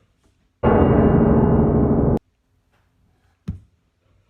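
A loud sustained piano-like chord, about a second and a half long, that cuts off abruptly; about three and a half seconds in, a single short knock.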